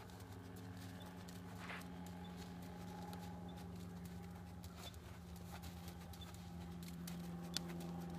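A horse walking on sand footing, with scattered hoofbeats over a steady low hum; one sharp click near the end.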